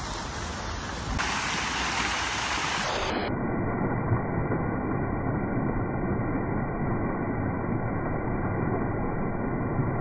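Water from an ornamental fountain's jets splashing into its stone basin: a steady rush of falling water that grows louder about a second in.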